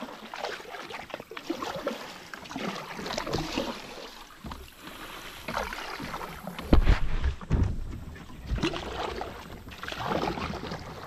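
Kayak on the water: water noise around the hull and the boat moving. Two heavy low thumps come a little past halfway.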